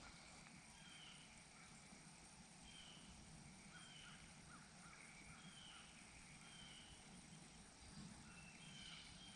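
Near silence outdoors, with faint short bird calls repeating about once a second in the background.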